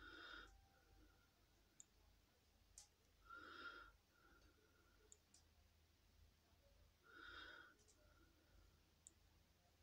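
Near silence with faint breathing close to the microphone, one breath about every three and a half seconds, and a few light clicks in between.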